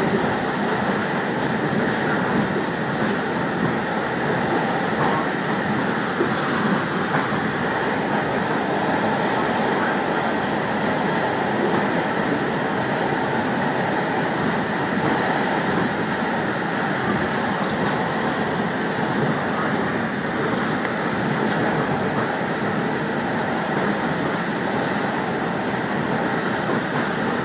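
Steady running noise of a train moving along the track, heard from inside at the front of the train.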